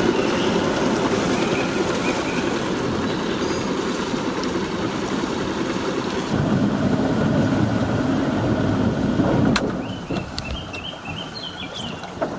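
Sailboat's inboard engine running under way with debris fouled round the propeller, the cause of a vibration aboard. The engine gets louder about six seconds in, then drops off sharply with a click after about nine and a half seconds, and birds chirp in the quieter stretch that follows.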